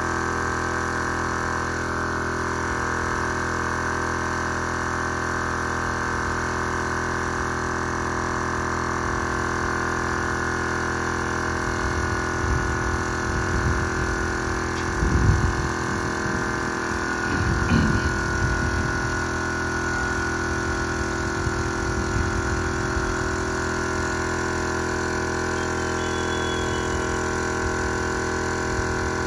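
Small portable piston air compressor running steadily with a constant mechanical hum, supplying a paint spray gun. A few low knocks and thuds come between about twelve and nineteen seconds in.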